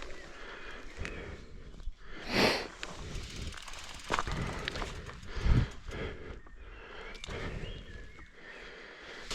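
Mountain bike on a dirt trail: tyre noise with scattered clicks and rattles from the bike, a loud rush of air about two and a half seconds in, and a heavy low thump about five and a half seconds in.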